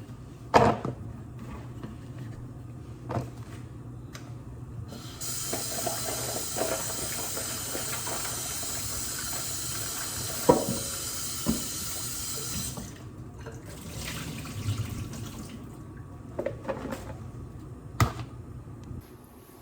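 Kitchen tap running into a sink for about seven seconds while freshly cut pumpkin is washed. A few short knocks and clatters of handling come before and after the water.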